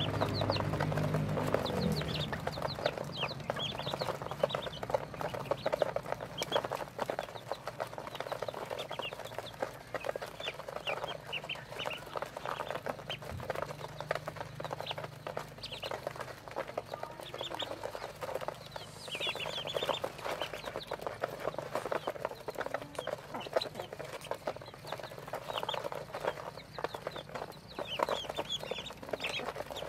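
A crowd of ducklings peeping constantly in short, high calls, over a busy patter of bills pecking feed from a tray. A low hum sounds in the first couple of seconds and then fades.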